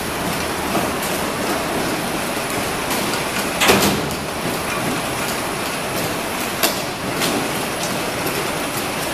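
Four-lane biscuit sandwiching machine running: a steady mechanical clatter from its conveyors and drives, with two sharp knocks about three seconds apart.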